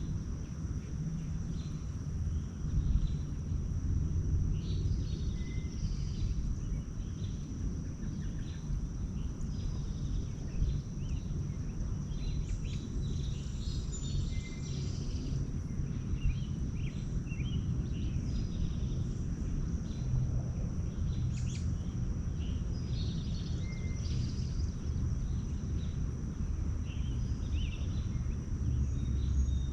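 Outdoor ambience of small songbirds chirping and calling in short scattered notes, over a steady low rumble and a constant thin high-pitched tone.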